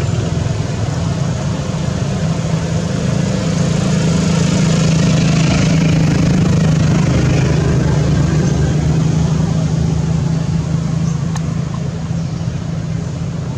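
An engine running steadily with a low hum, a little louder midway.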